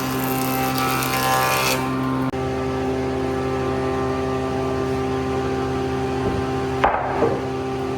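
A machine motor running steadily, with a hissing noise over it during the first two seconds that then stops. Near the end there is a short, sharp knock.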